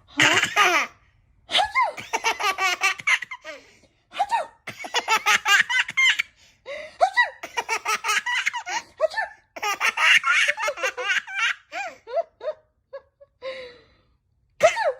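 An 8-month-old baby laughing in about six bouts of rapid, pulsing belly laughter with short pauses between them.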